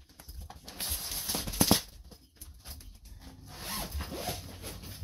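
Zipper on the clear plastic bag of a packaged comforter set being pulled open in two rasping stretches, the first about a second in and louder, the second near the end, with the plastic crinkling.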